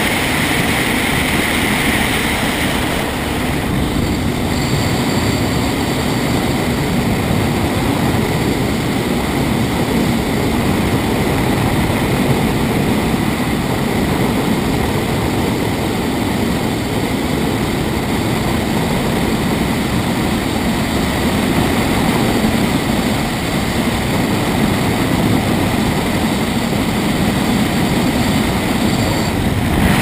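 Motorized hang glider (trike) in flight: its engine and propeller drone steadily under a loud rush of wind over the open-cockpit microphone.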